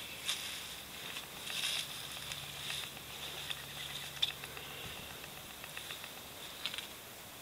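Footsteps crunching and rustling on dry, matted grass, an irregular series of short crackles, over a steady hiss and a faint low hum.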